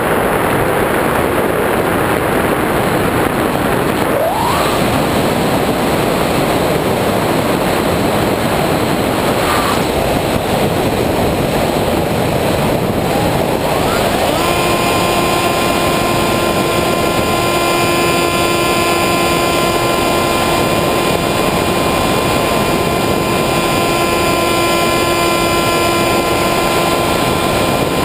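Airflow rushing over the onboard camera of an EasyStar II RC foam plane in flight, mixed with the whine of its electric pusher motor. The whine slides up in pitch a few seconds in, and from about halfway it holds one steady pitch.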